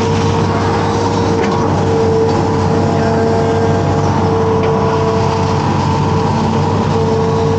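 Amphibious excavator's diesel engine running steadily under working load as the boom and bucket dig, heard from on the machine: a low drone with a constant whine above it.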